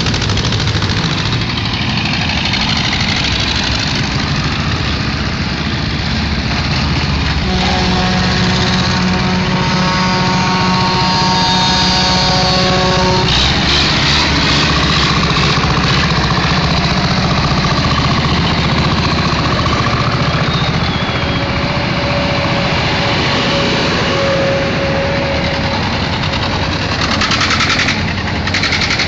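Farm tractors with diesel engines running steadily as they drive past in a slow procession. About a quarter of the way in, a steady pitched tone sounds for about five seconds over the engine noise.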